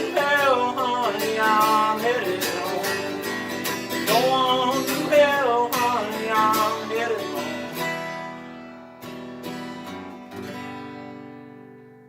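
Country band's instrumental ending of a song: strummed acoustic guitar under a wavering melody line, the last chord ringing and fading out over the final few seconds.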